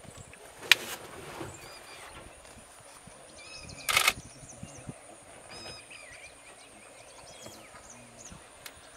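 Birds chirping and whistling in short calls over a steady high insect drone, broken by a sharp knock about a second in and a louder brief crash about four seconds in.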